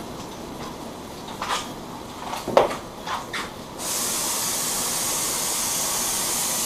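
A few knocks and clatters, the sharpest about two and a half seconds in, then a compressed-air spray gun with a 1.8 mm tip starts hissing steadily about four seconds in as it sprays activator in one slow pass over the carbon-fibre film floating on the dip tank, activating the film for dipping.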